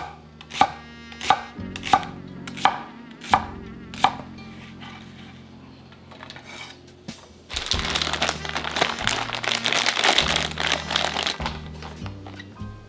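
Kitchen knife chopping on a cutting board, a sharp chop about every two-thirds of a second for the first four seconds, over soft background music. About seven and a half seconds in, a loud hissing noise starts and runs for about four seconds.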